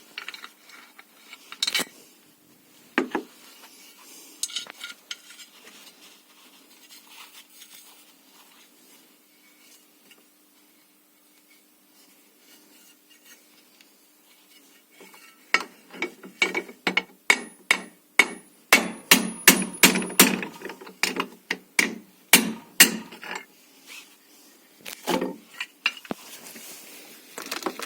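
Hammer blows on the steel of a car's front strut top mount, knocking out its studs. There are a few scattered knocks at first, then about halfway through a quick run of sharp strikes, roughly two to three a second for several seconds, and a couple more near the end.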